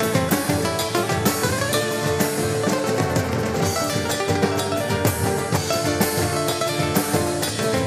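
Instrumental break of a live band: an acoustic guitar plays a melodic lead line over a drum kit and other guitars.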